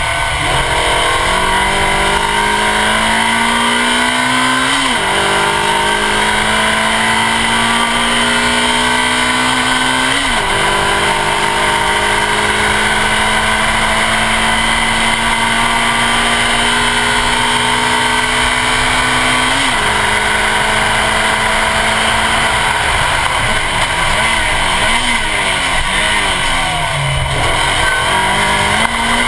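Suzuki Swift Sport rally car's four-cylinder engine pulling hard at full throttle, heard from the front bumper. Its pitch climbs steadily through the gears, with sharp drops at the upshifts about 5, 10 and 20 seconds in. Near the end the engine note rises and falls several times as the driver lifts and changes down, over constant tyre and wind rush.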